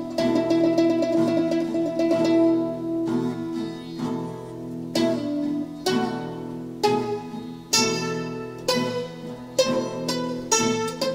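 Traditional Greek music played on plucked string instruments: a melody of sharply plucked notes over lower sustained tones.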